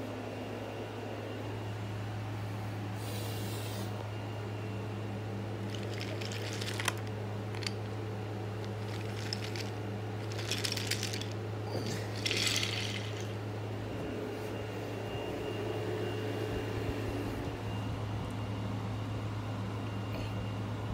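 A steady low hum throughout, with several short rustling, scraping noises of toys being handled on carpet.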